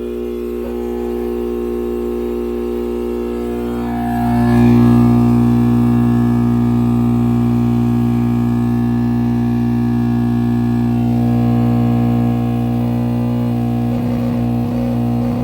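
Philips tower home-theatre speaker giving out a loud, steady buzzing drone, the fault noise it starts making a few seconds after being switched on. It gets louder about four seconds in.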